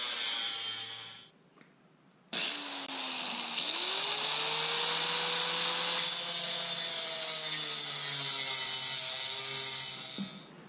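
Angle grinder cutting into a steel lift-cylinder ball-end link. The grinding dies away about a second in, then after a short silence runs steadily again with a clear motor whine and winds down near the end.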